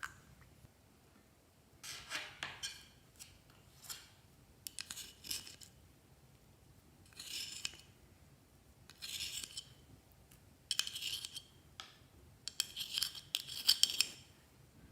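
Glossy slime being mixed and squished, making sticky, crackly clicking sounds in about seven irregular bursts, the longest and loudest near the end.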